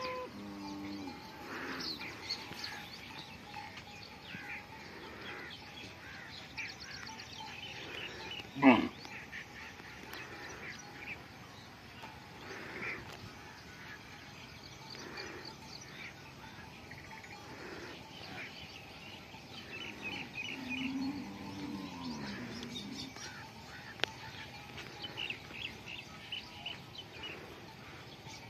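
Small birds chirping throughout in a grazing pasture, with one short, loud animal call about nine seconds in and a lower, drawn-out animal call a little after twenty seconds.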